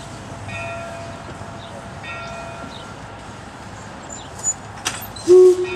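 1875 Baldwin 4-4-0 steam locomotive moving slowly along the track with a steady running noise and faint recurring ringing tones. Near the end come two sharp clanks and then a brief loud tone, the loudest sound here.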